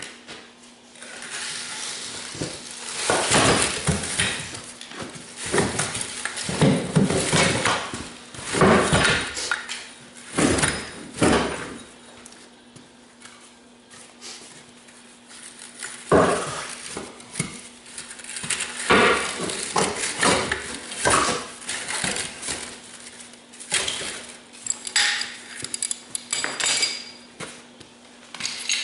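Metal over-the-tire skid steer track links clanking and rattling as they are handled and worked onto the tire, in irregular spells of sharp clinks and knocks.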